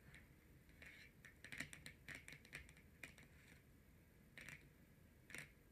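Faint clicks of long natural fingernails tapping on tarot cards: a quick run of light taps about a second and a half in, then single taps spaced out toward the end.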